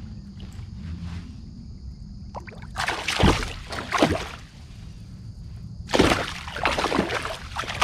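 A hooked bass splashing and thrashing in the water beside a kayak, in two bouts of sloshing a few seconds apart.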